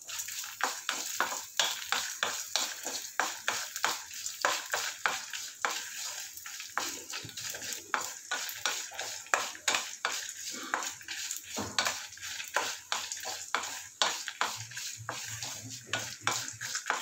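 Wooden spatula stirring and scraping whole spices and dried red chillies roasting in a little oil in an aluminium kadai: quick repeated scrapes and clicks of wood on metal, a few each second, with the seeds rattling against the pan.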